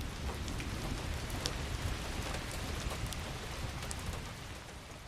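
Steady rain falling, with scattered sharp drop ticks over a low rumble; it eases off a little near the end.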